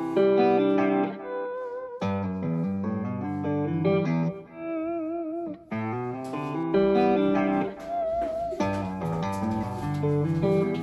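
Instrumental music: a plucked-string melody over changing chords, with a few notes held with vibrato.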